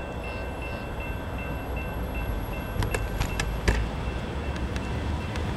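Railroad grade-crossing warning bell ringing in quick, even dings over the low rumble of an approaching train. A few sharp clicks or knocks come around three to four seconds in.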